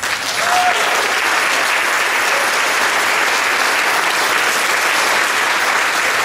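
Audience applause, breaking out at once and continuing steadily.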